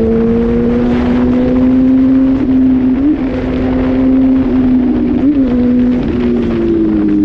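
A vehicle engine running at a nearly constant pitch, a steady drone with a few brief small wobbles in pitch.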